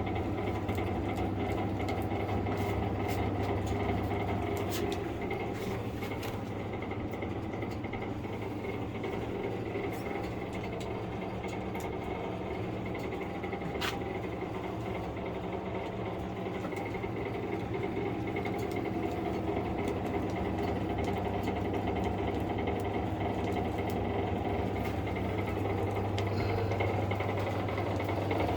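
A steady mechanical hum with a strong low drone, running unchanged throughout.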